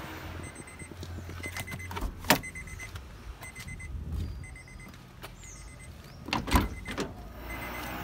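Car door being opened and handled: scattered clicks, a sharp knock about two seconds in and a couple of louder thumps about six and a half seconds in. A faint rapid beeping runs for the first few seconds.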